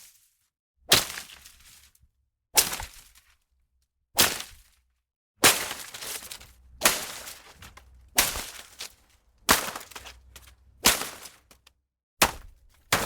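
Leafy plants being struck again and again: sharp whacks into foliage, each followed by a short rustling tail, about one every second and a half, with three quicker strikes near the end.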